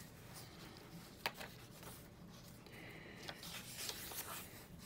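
Card-stock pages of a handmade paper-bag journal being handled and turned: faint rubbing and rustling of paper, with one sharp tick a little over a second in and a few lighter ticks later.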